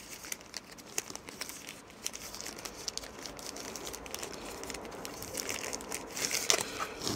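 Thin plastic packaging bag crinkling and rustling continuously as it is handled and pulled open by hand.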